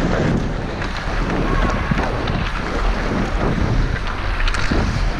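Wind rushing over a referee's body-worn camera microphone as he skates, with the scrape of skate blades on ice every second or so and a steady low hum under it.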